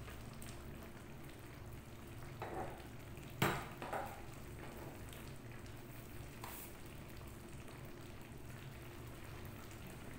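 A pot of coconut-milk stew simmering faintly, with a metal ladle stirring and knocking against the pot: one sharp clink about three and a half seconds in and a softer one just after.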